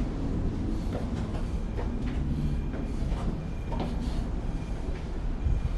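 Steady low rumble of a moving vehicle, with scattered light knocks and rattles.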